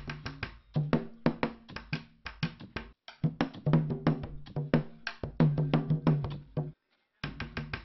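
Music with fast, dense percussion strokes over a low, steady bass note, breaking off for a moment about seven seconds in.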